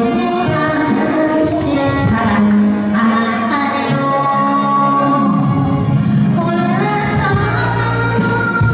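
A woman singing a Korean trot song into a microphone over amplified backing music, the vocal line rising and falling continuously.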